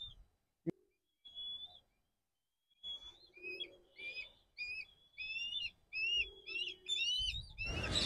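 Black kite calling: one high whistled note about a second and a half in, then from about three seconds a run of short, thin whistled notes, about two a second, lasting some five seconds.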